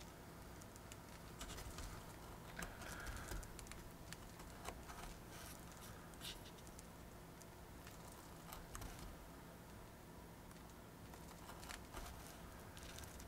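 Faint, scattered light ticks and scratching of thin card being cut along a printed line.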